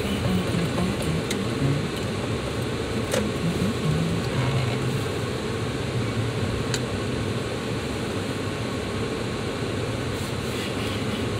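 Car interior noise: a steady low rumble of the engine and tyres with the climate fan blowing, as the car rolls slowly, with a couple of light clicks.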